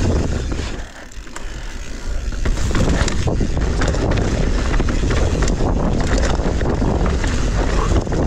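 Mountain bike riding down a rough trail over wet roots and rocks: tyres rumbling, with dense clattering and rattling from the bike, and wind buffeting the microphone. It is briefly quieter about a second in, then the clatter picks up again.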